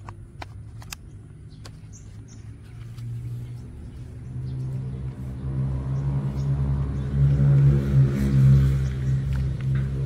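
A motor vehicle's engine running, growing louder from about three seconds in, with its low hum loudest near the end. Sharp plastic clicks from toy car parts being handled come in the first couple of seconds.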